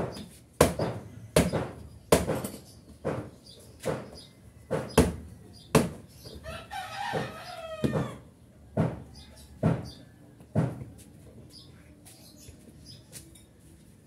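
A rooster crowing once about halfway through. Under it runs a series of sharp knocks, roughly one a second, which stop about three quarters of the way in.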